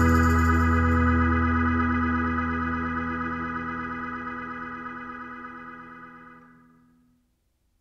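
Background music ending on a held organ-like keyboard chord, which fades away and dies out about six and a half seconds in.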